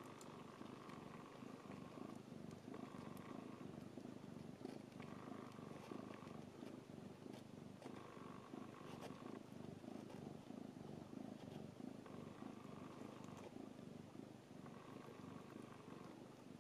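Mother cat purring steadily and softly while her newborn kittens nurse. A faint higher hum comes and goes every few seconds over the low purr.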